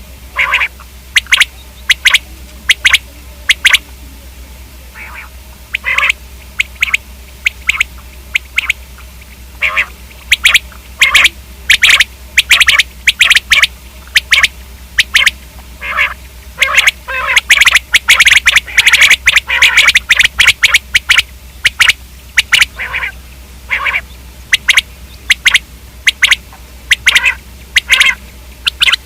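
Common quail calling: loud, short, sharp calls in irregular series, coming thick and fast for a few seconds around the middle.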